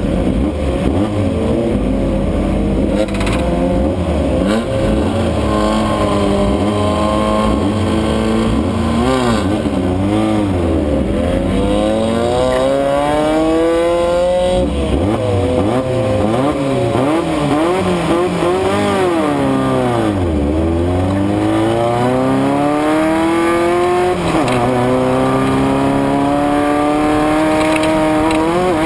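Race car engine running hard, its pitch climbing as it accelerates and then dropping sharply as the throttle comes off, several times over.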